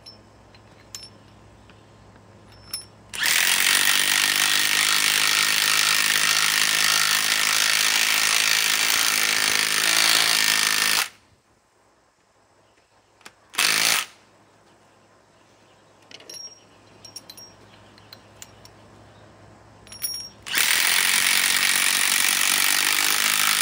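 Milwaukee cordless impact wrench hammering on a 6-inch lag screw in a log, in two long runs of several seconds each with a short burst between.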